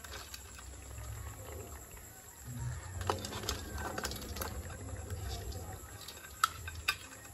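Water boiling under the metal lid of a covered wok holding live mud crabs: a steady low bubbling rumble with scattered sharp clicks and knocks against the lid and pot as the crabs move inside, the sharpest a little past halfway.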